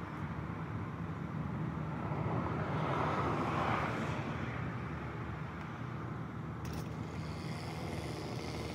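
An engine idling steadily, with a louder swell of noise about three to four seconds in and a short click near the end.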